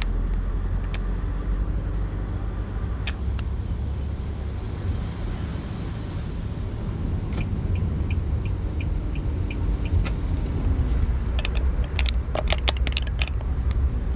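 Steady low rumble of a road vehicle driving, heard from inside the cab. Scattered sharp clicks, and about halfway through a short run of even ticks, about three a second; near the end a flurry of clicks and rattles.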